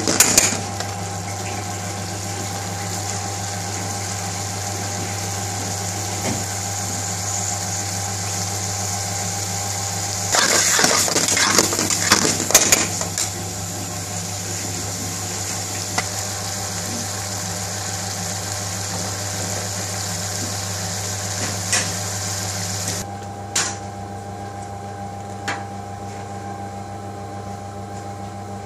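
A metal spoon stirring and scraping thick curry in an aluminium pan, in a busy spell of clicks and scrapes about ten seconds in, over a steady hum and hiss. Near the end the hiss drops away and a few single clicks remain.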